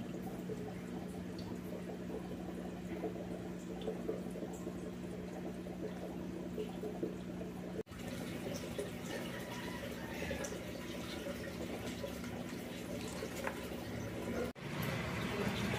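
Air bubbling steadily up through an aquarium's K1 micro moving-bed filter from an air stone: a fizzy, crackling water sound over a steady low hum. It cuts out briefly about eight seconds in and again near the end.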